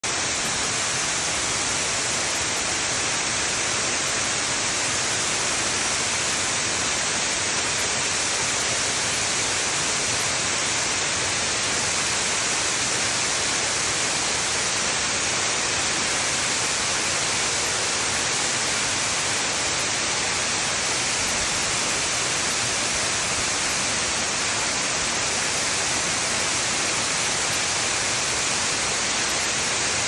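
Tiered waterfall spilling over rock ledges: a steady, hissy rush of falling water that does not change.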